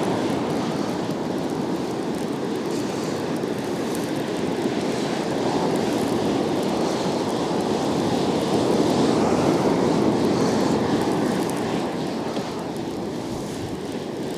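Surf breaking on a sandy beach: a steady wash of waves that swells about halfway through and eases off near the end.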